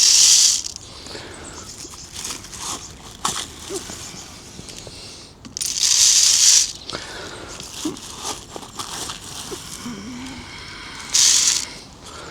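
Three short bursts of rustling, about five seconds apart, as bird food is handled from its bag to top up a feeder, with light clicks and knocks in between.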